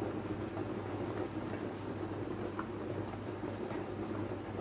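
Cherry jam with whole cherries bubbling at a steady boil in a wide enamel pan, over a steady low hum.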